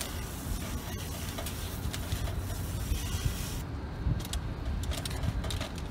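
Garden hose spray nozzle spraying water into a galvanized metal can of soil: a steady hiss that cuts off suddenly about three and a half seconds in. After that come a few small clicks of handling.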